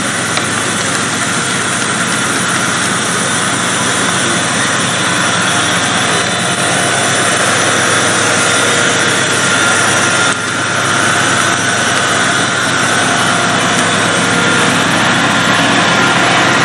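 Diesel multiple unit's engines running steadily as the train draws in and stands at the platform, a constant drone with a few steady whining tones over it. It grows slowly louder, with a brief dip about ten seconds in.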